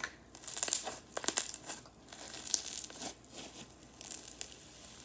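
Pink slime being squeezed and kneaded in the hands, making irregular small crackles and pops, bunched most thickly in the first two seconds and thinning out after.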